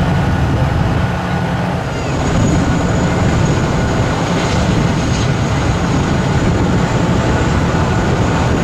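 Tank engines running in a parade column. About two seconds in, this gives way to a formation of CH-47 Chinook tandem-rotor helicopters flying low overhead, whose rotors make a loud, steady, low rumble.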